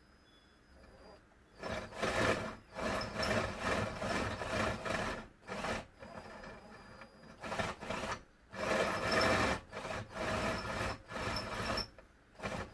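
Drill bit cutting into the metal of a VW steering lock housing, run in repeated rough stretches of a second or two with short pauses, starting about two seconds in, to enlarge the holes over the retaining pins.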